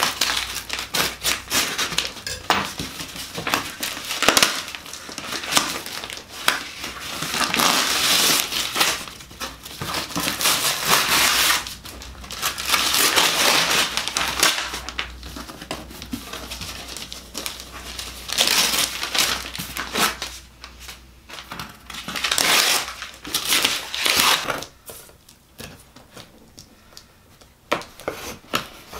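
Brown packing paper being crumpled and pulled out of a shipping box by hand, in irregular bursts of crinkling and rustling, quieter near the end.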